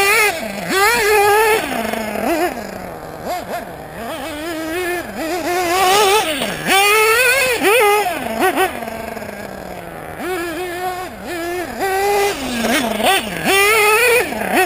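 Nitro engine (LRP ZR.30) of a Team Associated RC8 1/8-scale buggy, geared with an 18-tooth clutch bell, revving hard in repeated bursts. Its pitch climbs steeply, then drops back as the throttle is let off, over and over.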